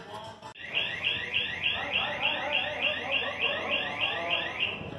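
Electronic alarm tone: a rapid, even series of rising chirps, about four a second, starting about half a second in and stopping just before the end.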